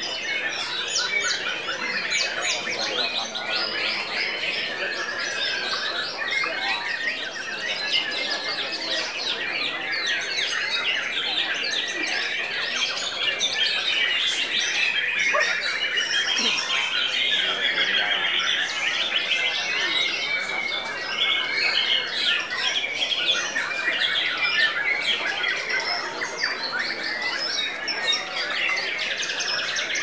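White-rumped shamas singing in competition: a dense, unbroken tangle of rapid, varied whistled notes and short glides from several birds at once.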